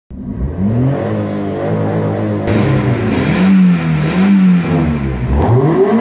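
Car engine revving, its pitch climbing, swelling and dropping back several times, with a rushing noise added at the highest revs about two and a half and four seconds in.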